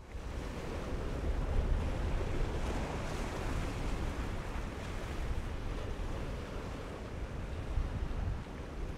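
Steady rush of wind buffeting the microphone over surf and waves.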